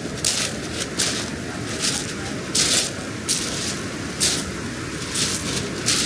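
Footsteps of a person walking at an easy pace, a short crunch at each step about every three-quarters of a second, over a steady low rush.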